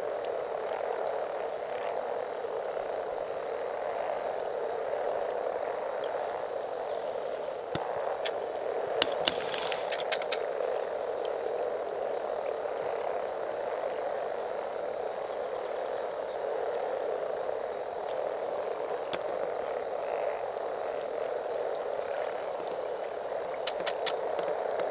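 A mass mating chorus of many frogs calling at once in a spawning pond, their overlapping calls blending into one steady, continuous drone. A few brief sharp clicks sound about nine to ten seconds in.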